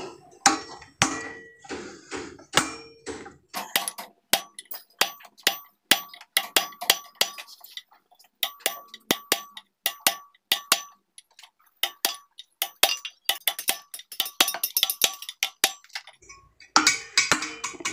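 Repeated hammer blows on steel, each a sharp strike with a short metallic ring, coming in quick uneven runs with short pauses and stopping about two seconds before the end: locking the parts of a rebuilt Kia Pregio ball joint in place before the rivet is peened over.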